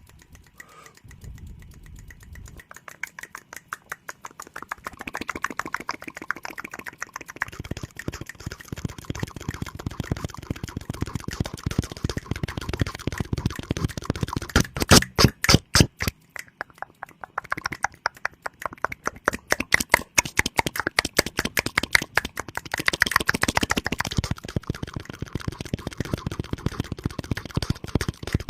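ASMR mouth sounds: rapid runs of wet clicks and smacks made with the mouth, growing louder a few seconds in and loudest in short stretches about halfway through.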